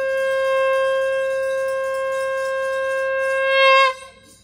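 A conch shell (shankh) blown in one long, steady note that swells louder and wavers just before cutting off about four seconds in.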